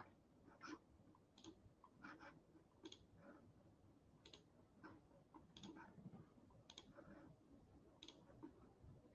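Near silence, broken by a dozen or so faint, irregular clicks of a computer mouse.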